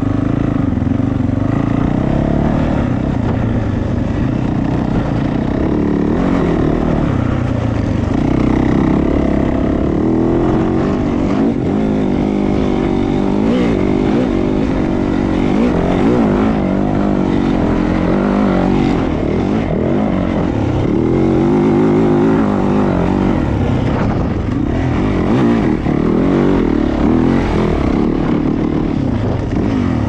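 Yamaha YZ450F dirt bike's 450 cc single-cylinder four-stroke engine running hard off-road. The revs keep rising and falling with the throttle throughout.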